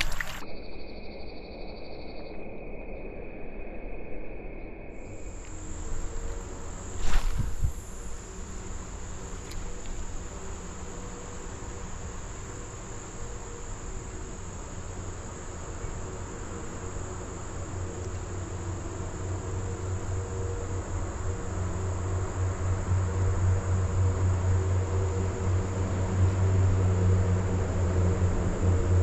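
Insects singing in a steady high-pitched trill that holds one pitch once it settles, a few seconds in. A short burst of noise about seven seconds in, and a low rumble that grows louder through the second half.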